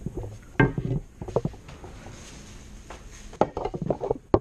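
Knocks, clunks and rattles of hockey gear being handled and pulled off wooden shelves: a few separate knocks in the first second and a busier cluster of clatter near the end.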